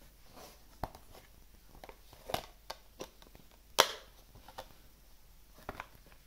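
Handling of a Blu-ray case and its packaging: a series of sharp plastic clicks with light rustling, the loudest click about four seconds in.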